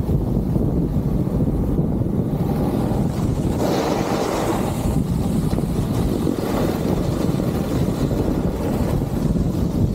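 Wind buffeting the microphone of a camera carried down a ski slope, a steady low rumble, with a snowboard sliding over groomed snow. A brighter scraping hiss comes about four seconds in as the board carves on its edge.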